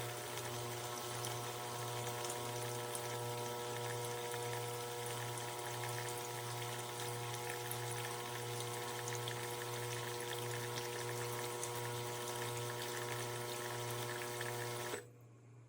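De'Longhi Magnifica Start fully automatic espresso machine's pump running steadily with a pulsing hum as liquid runs out of the spout. It cuts off suddenly near the end.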